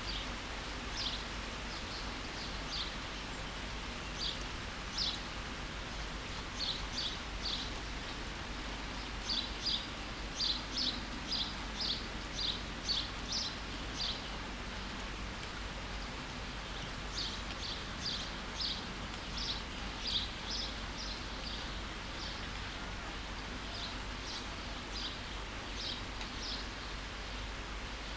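Steady rain hiss with a small bird chirping short, high notes in quick runs, pausing for a few seconds about halfway through.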